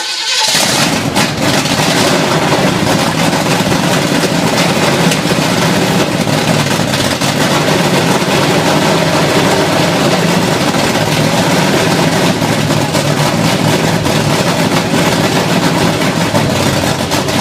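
Freshly rebuilt 1974 Chevy 350 small-block V8, fitted with a Comp 292H cam and roller rockers, running loud and steady on its first start after the rebuild. It comes in suddenly at full level.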